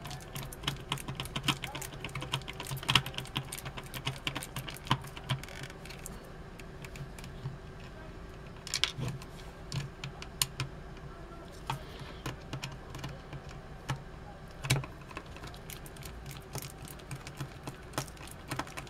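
Irregular small clicks, taps and scrapes of a screwdriver and hard plastic as screws are driven into the plastic giggle box of a Tickle Me Elmo toy, with a few louder knocks, over a low steady hum.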